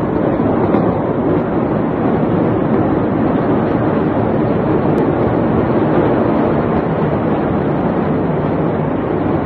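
Steady wind noise rushing over a phone's microphone, a loud even roar with no breaks.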